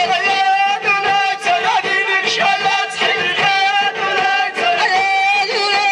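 Amazigh Ahidous troupe singing a chant in chorus, men's and women's voices together on long held notes, with hand-held frame drums (allun) struck along.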